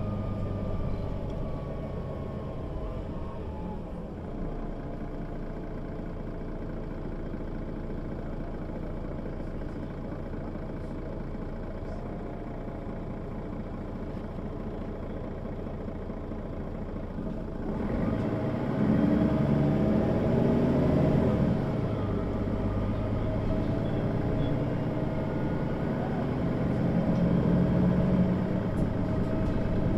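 Mercedes-Benz O 530 G Citaro articulated bus, diesel engine running steadily at low revs. A little over halfway in it gets louder, its pitch rising and falling as the bus pulls away and accelerates through the Voith automatic gearbox, and it swells again near the end.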